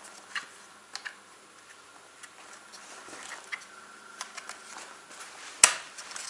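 Small plastic clicks and rubbing as the winter/summer shutter of a Holzfforma G255 chainsaw is taken out and turned over by hand, with one sharp snap about five and a half seconds in.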